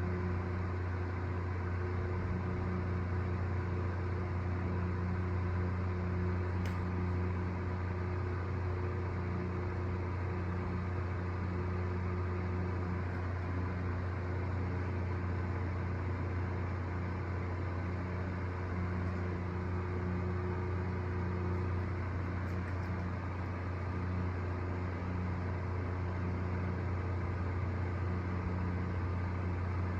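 Steady low mechanical hum with a few fainter steady tones above it.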